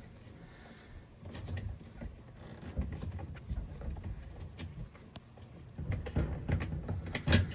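A screwdriver prying at the plastic wire connector and clip on a washer's drain pump: light scattered clicks and rattles of handled parts over low rumbling handling noise, with one sharper click near the end.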